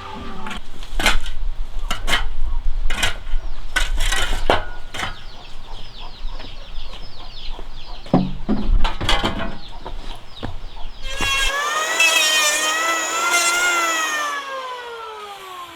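Woodworking by hand and machine: a run of sharp knocks and blows on wood over a low rumble, then a power tool's whine that rises, holds and winds down near the end.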